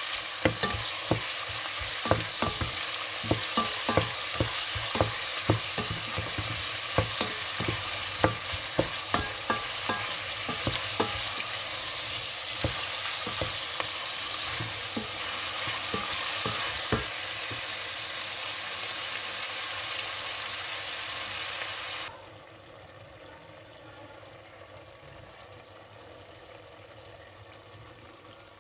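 Meat, onion and garlic sizzling as they sauté in a steel pot, with a spatula clacking and scraping against the pot about twice a second as it is stirred. The stirring stops about two-thirds of the way through, and a little later the sizzle cuts off suddenly, leaving a much softer hiss with the meat now sitting in sauce.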